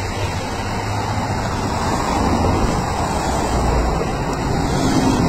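Convoy vehicles driving past on a road: a steady rush of engine and tyre noise.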